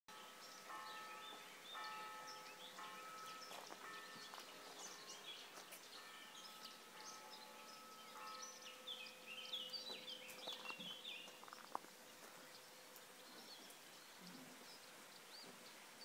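Faint birdsong from several small songbirds, many quick chirps and twitters overlapping, busiest a little past the middle.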